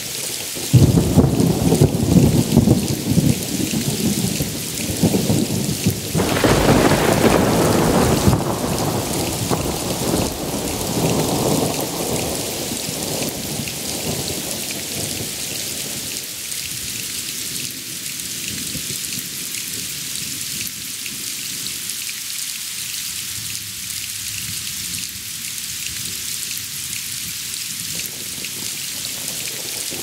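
Steady heavy rain hissing, with thunder breaking in about a second in, swelling again a few seconds later, then dying away about halfway through and leaving the rain alone.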